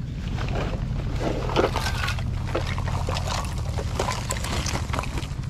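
Dozens of plastic fishing floats and small bottles clattering and rattling onto an asphalt road as a cloth bag is shaken empty, with the bag rustling, over a steady low rumble.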